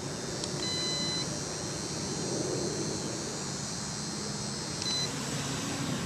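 Two electronic beeps: one about half a second long just after a click, and a shorter one about five seconds in, over a steady hiss.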